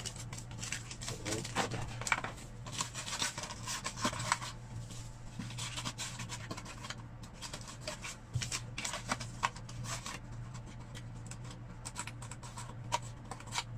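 Rustling, crinkling and small clicks of an antigen self-test kit's plastic wrappers, Ziploc bag and cardboard box being handled and packed away, over a steady low hum.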